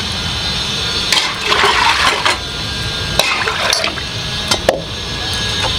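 Hands moving handfuls of chopped greens and vegetables from a steel bowl into a pot of water, with two spells of splashing and a few sharp clicks.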